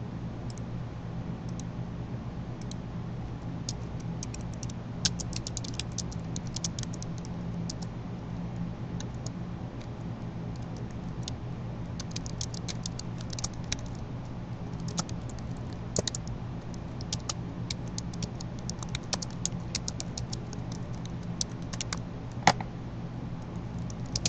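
Typing on a computer keyboard in bursts of rapid key clicks, with a few louder single clicks, over a steady low electrical hum.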